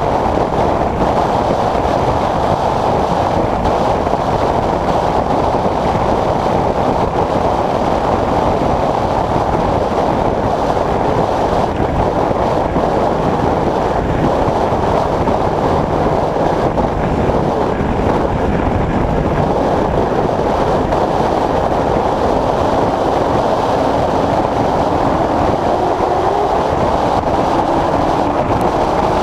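Race car's V8 engine and road noise heard from inside the car's cabin, a loud steady din. Near the end a pitch rises as the engine speeds up.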